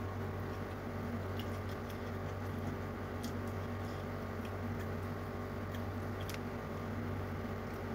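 Eating by hand: faint small clicks and squishes of fingers working rice and fish on a plate, and of chewing, over a steady low hum.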